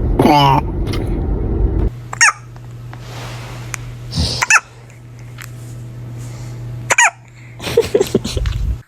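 Baby hiccuping: three short, sharp hiccups a little over two seconds apart, with small voice sounds near the end.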